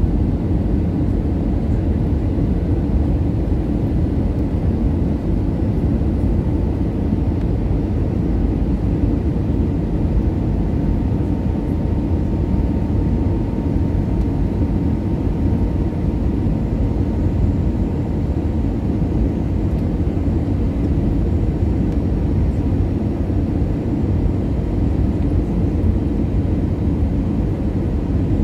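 Airbus A320ceo cabin noise on approach, heard at a window seat beside the engine: a steady, even rumble of jet engines and airflow, mostly low. A faint thin hum sounds above it for a while in the middle.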